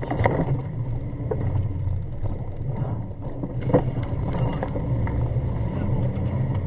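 Jeep Grand Cherokee's engine running under load, heard from inside the cabin as it drives a rough offroad stage, with several knocks and bangs from the body and suspension over the bumps, the sharpest a little past halfway.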